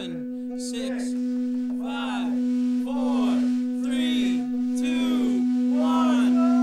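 Live band jam: a steady sustained drone note under a string of swooping pitch slides, each rising briefly then falling, about two a second.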